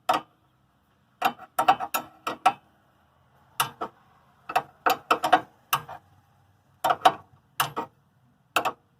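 Ratchet wrench clicking in short runs of a few quick clicks with pauses between, as a stabilizer link bolt is run in.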